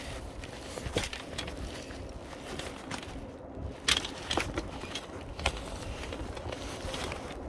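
Scattered knocks and clicks of a climber's boots and gear against a steel lattice tower while climbing down, over a steady low rumble.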